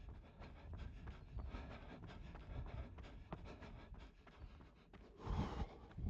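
A runner's footsteps at a steady pace of about three a second, with a louder burst of noise a little after five seconds in.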